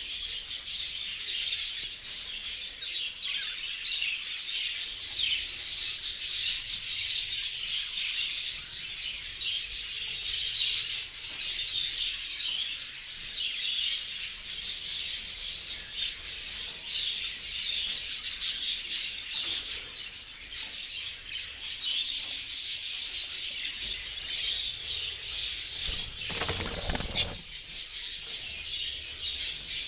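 A flock of budgerigars chattering and warbling continuously in dense, overlapping chirps. A short, loud rustling burst comes a little before the end.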